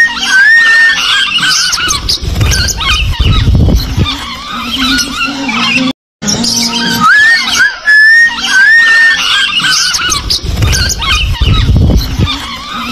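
Small parrots chattering and squealing in short chirps and rising whistles, with music underneath. The sound breaks off for a moment about six seconds in and the same stretch starts over as a loop.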